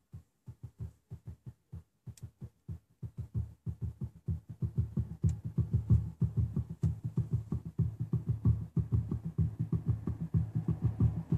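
Bass-heavy music with a rapid thumping beat, about five pulses a second, played by a cheap Bluetooth MP3 module through a TDA7297 amplifier board into a car speaker. It gets louder over the first few seconds.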